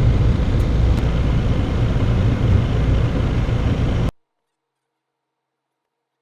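Steady, loud, low rumbling noise that cuts off abruptly to dead silence about four seconds in.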